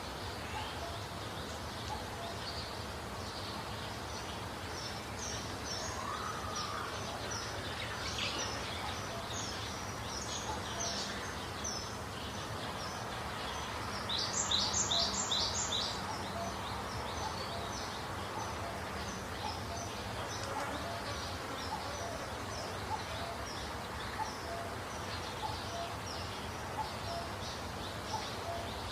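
Small birds chirping repeatedly over steady background noise, with a quick run of four louder chirps about halfway through.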